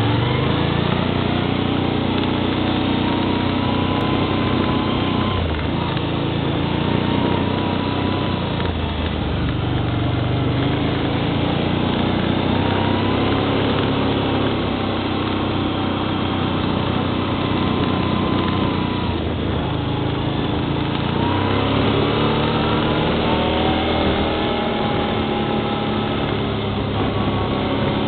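ATV engine running under way, its pitch rising and falling with the throttle, with a longer rise about three-quarters of the way through.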